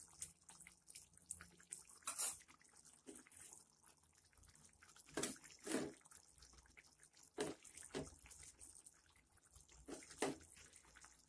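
Thick broccoli and pea gravy simmering, with soft bubbles popping at its surface every second or two, often two in quick succession.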